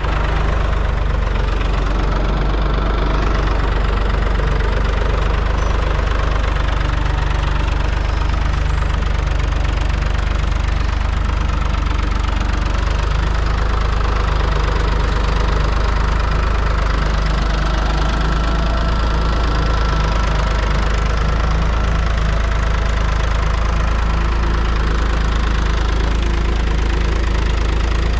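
Farmtrac 6050 2WD tractor's diesel engine running steadily under load as the tractor works through mud.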